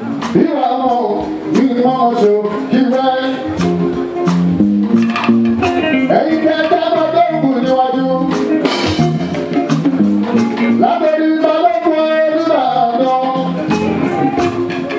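Live Fuji music: a man sings into a microphone over the band's drums and guitar.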